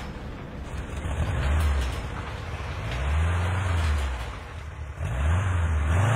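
Porsche Panamera's engine revving up and easing off three times as the car pulls out of a garage, the last rev climbing highest.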